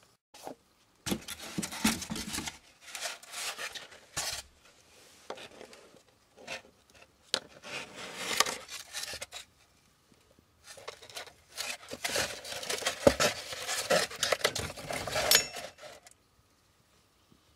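Scraping and rubbing in four irregular bouts, the longest near the end, with a couple of sharp knocks.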